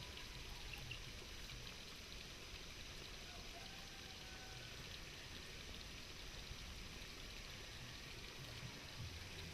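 Faint, steady outdoor background hiss with no distinct events, like wind or running water.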